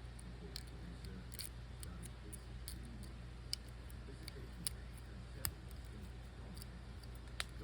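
Faint, scattered metal clicks and taps as a jigsaw T-shank blade is handled into the package hook of a Victorinox Swiss Army knife and the hook is closed on it, over a steady low hum.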